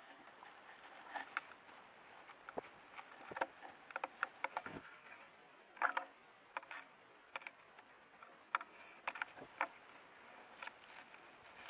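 Wolves handling a trail camera up close: irregular clicks, knocks and scrapes on the camera, some in quick clusters, over a faint steady high-pitched tone.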